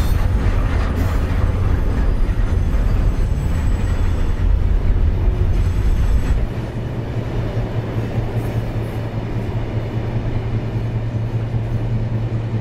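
Heavy iron-ore freight train's hopper wagons rolling past on the Mauritania Railway: a continuous loud, low rumble and rattle of steel wheels on the rails. It eases a little about halfway through into a steadier low hum.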